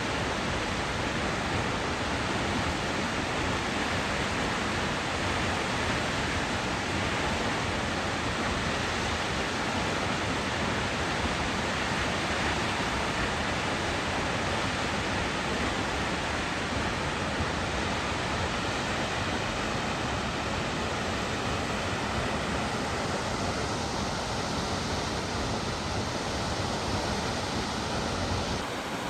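Steady rushing roar of Salt Creek Falls, a tall plunge waterfall pouring into its pool; the sound shifts slightly near the end.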